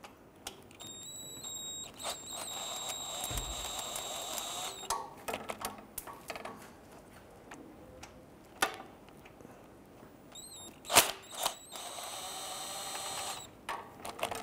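Ratchet with a 13 mm socket on a long extension and swivel, clicking in two spells as it turns off the nuts on the starter solenoid terminals, with a few sharp metal knocks between.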